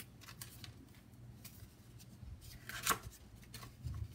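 Faint rustling and crinkling of a clear plastic sleeve and cardstock as a die set is slid out of its packaging, with a sharper crinkle about three seconds in.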